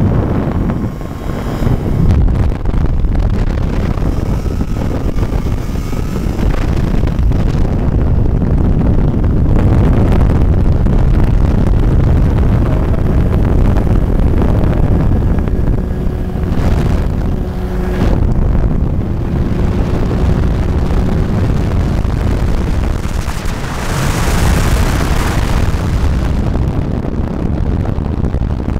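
Trike ultralight's engine and pusher propeller running steadily in flight, mixed with wind buffeting the microphone.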